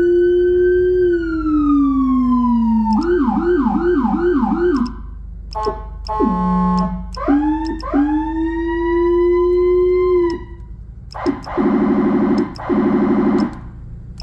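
Whelen HHS3200 electronic siren cycling through its tones: a wail held high, then slowing and falling, then a quick repeating yelp about three sweeps a second. After a short buzzy horn blast about six seconds in, the wail rises again, and a fast warbling tone follows near the end.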